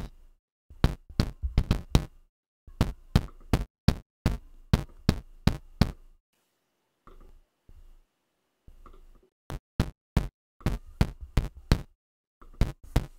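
Digital audio glitching: a run of sharp, irregular clicks and pops with dead gaps between them, which go quieter for a few seconds in the middle and then come back. It is the sign of an audio dropout on the USB audio link between the Logic Pro X session and the Behringer WING mixer.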